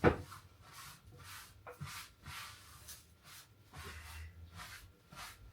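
A paper towel wiping and rustling over a kitchen surface in a run of soft, short strokes, after a sharp knock right at the start.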